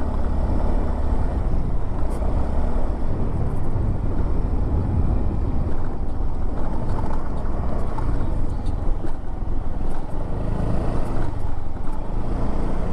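A vehicle engine running steadily, with a constant deep, noisy rumble.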